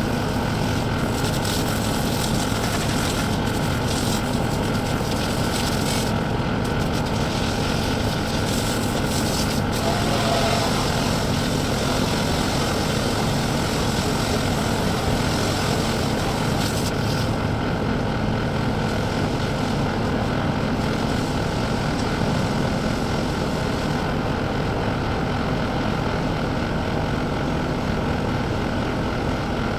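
A CAT skid steer loader's engine running steadily. Over it is a high hiss that fades away about two-thirds of the way through.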